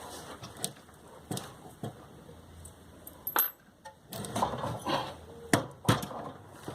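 Small metal tools and parts being handled on a workbench: scattered light clicks and knocks, a brief high chirp about three and a half seconds in, then a busier stretch of clatter in the second half.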